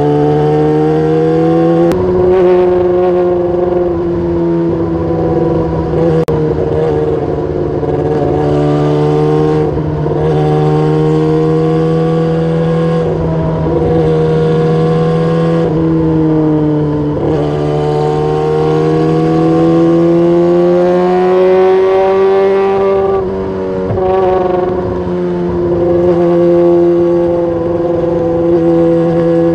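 Motorcycle running through a loud aftermarket exhaust, its engine note rising and falling slowly with the throttle.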